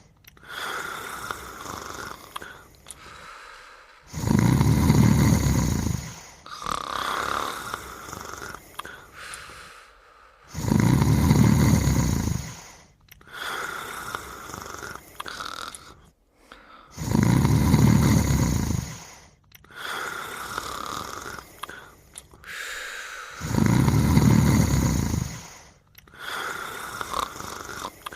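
Slow, regular snoring in deep sleep. A loud, low snore comes four times, about every six and a half seconds, and each is followed by a softer breath.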